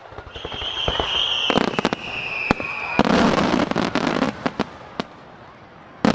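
Starmine fireworks bursting: scattered sharp bangs and cracks, a high whistle that sinks slightly in pitch over about three seconds, then a dense rush of crackling for about a second in the middle, and one loud bang near the end.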